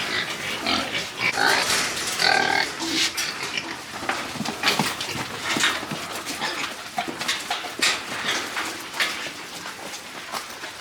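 Piglets squealing and grunting, with high squeals in the first few seconds, then mostly short clicks and knocks.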